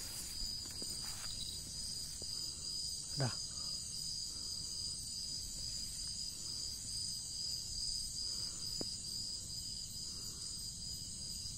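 Night insect chorus: crickets trilling steadily at a high pitch, with a second, higher band of insect song above. A single short falling sound comes about three seconds in.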